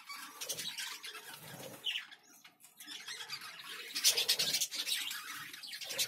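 Budgies chirping and squawking faintly in short, irregular calls, a little louder about four seconds in.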